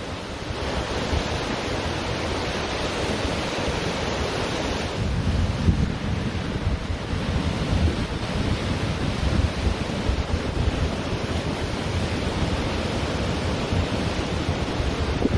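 Ocean surf washing onto a beach in a continuous hiss that swells in the first few seconds. Wind buffets the microphone with a gusty low rumble, stronger in the second half.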